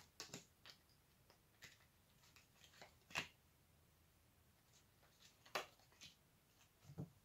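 Faint rustling and light taps of cards being handled and laid out on a cloth-covered table. The clearest taps come about three seconds in and again about five and a half seconds in.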